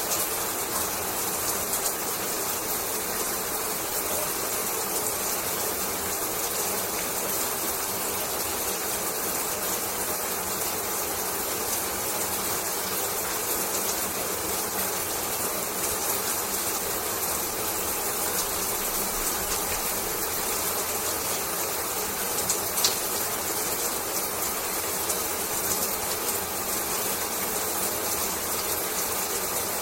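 Running shower water falling and splashing in a steady hiss, with faint scattered ticks of droplets and one brief louder click about 23 seconds in.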